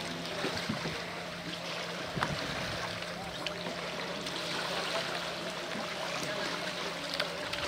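Steady rush of wind and lapping lake water, with the even drone of a small boat's outboard motor out on the water.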